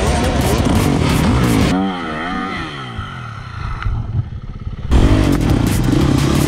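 Dirt bike engines running and revving hard, with clattering; the pitch swings up and down quickly about two seconds in, drops off for a couple of seconds, and the engine sound comes back loud about five seconds in.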